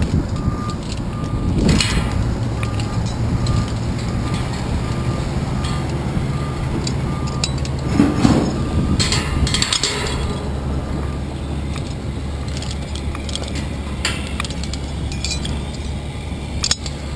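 Carabiners and climbing hardware clinking against the steel members of a lattice tower as they are unclipped and reclipped, in scattered clicks with a cluster about 8 to 10 seconds in. A steady low rumble of wind on the microphone runs underneath.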